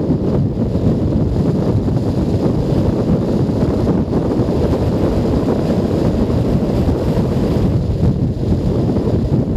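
Steady wind buffeting on a helmet-mounted camera's microphone while riding a Junak M12 Vintage 125 cc motorcycle at road speed, with the bike's engine and road noise blended in underneath.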